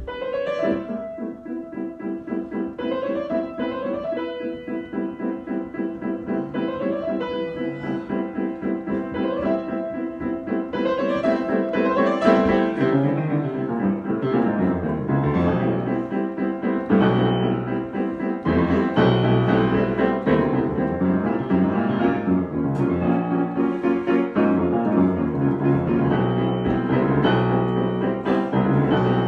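Solo piano improvisation: a short rising figure repeats over held chords. About halfway through it grows louder and fuller, with a moving bass line.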